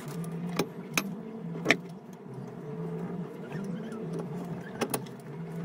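Sharp metal clinks as a replacement water circulation pump and its bolts are fitted against a MerCruiser 5.0 engine block. There are three in the first two seconds, the loudest a little under two seconds in, and a close pair near the end, over a low steady hum.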